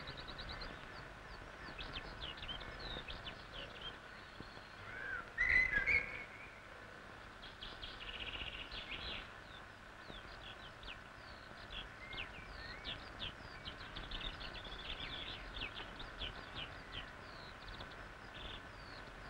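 Birds singing and calling: a steady stream of short chirps and trills, with one louder, sliding call about five seconds in.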